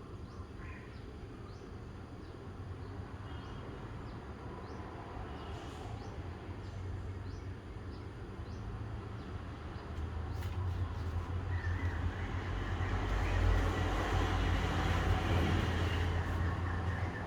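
A vehicle passing by: a low rumble that builds over several seconds, is loudest a little past the middle, and then eases off. Faint, evenly repeated insect chirps sound early on.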